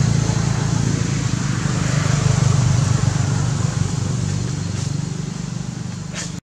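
A motor vehicle's engine running: a steady low hum that swells to its loudest two or three seconds in and then slowly fades.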